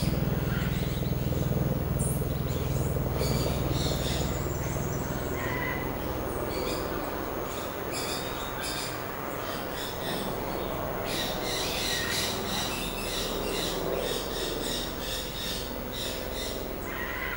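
Outdoor ambience: repeated short high bird chirps over a low rumble that fades over the first few seconds.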